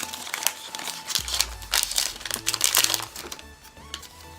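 Wrapper of an Upper Deck hockey card pack being torn open and crinkled by hand: irregular crackling that thins out after about three seconds.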